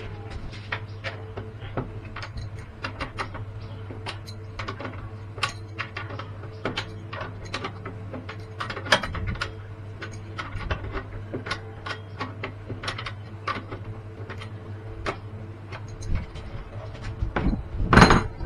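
Irregular small mechanical clicks and knocks over a steady low hum, with one louder knock near the end.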